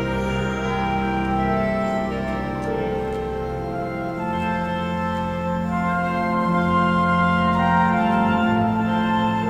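Live instrumental music from a small ensemble of flute, violin and clarinet, playing a slow melody of long held notes over sustained low notes.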